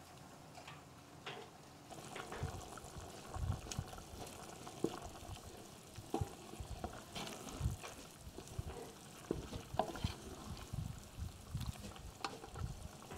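Wooden spatula stirring a large aluminium pot of simmering bean and lentil soup, with irregular sloshing of the liquid and soft knocks against the pot, starting about two seconds in.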